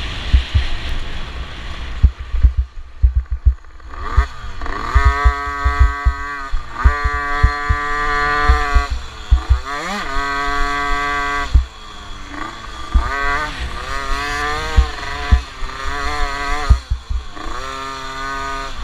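50cc motocross bike engine, heard close up, revving up and holding high, then dropping back, over and over. Heavy low thumps run under it throughout.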